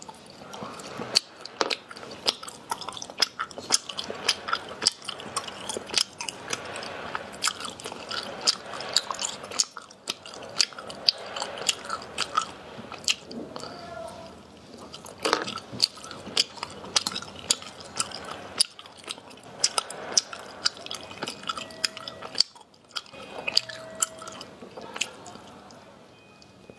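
Close-up eating sounds: a person biting and chewing small ice sweets off sticks, with many sharp crackles and wet mouth clicks.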